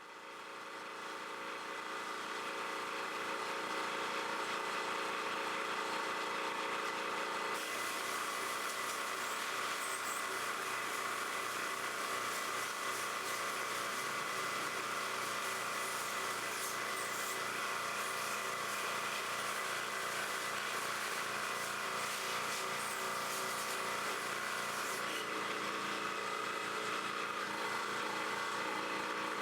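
A motor-driven machine running steadily, with a rushing noise over it that grows stronger about seven seconds in and eases near the end.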